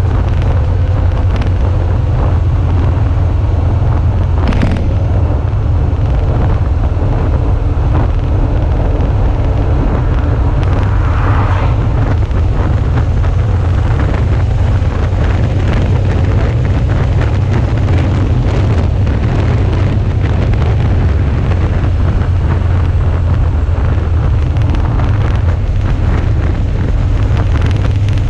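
Suzuki V-Strom 650's V-twin engine running at road speed, with heavy wind noise on the microphone. A single sharp click comes about five seconds in.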